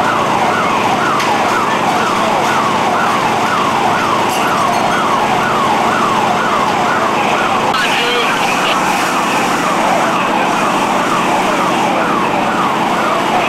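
Emergency vehicle siren in a fast yelp, about three quick falling sweeps a second, going steadily over a constant rushing noise at a working fire.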